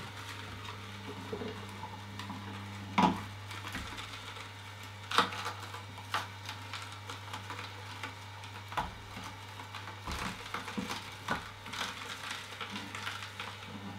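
Horizontal slow juicer running with a steady low motor hum while its auger crushes carrot pieces, with sharp cracks every few seconds as the carrots break, the loudest about three and five seconds in.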